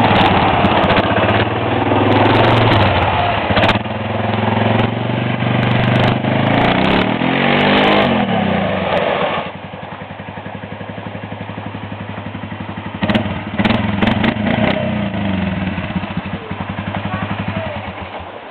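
A 400 cc quad bike (ATV) engine running close by, its pitch rising and falling as it is revved. About halfway through it gets suddenly quieter as the quad pulls away, and it keeps running more faintly in the distance.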